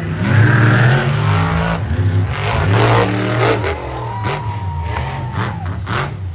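A powerful engine revving hard on the track, its pitch rising and falling again and again, with a few short sharp sounds in the last two seconds.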